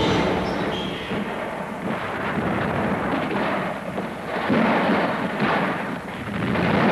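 Battle noise on an old newsreel soundtrack: a dense, continuous rumble of explosions and gunfire, swelling about halfway through and again near the end.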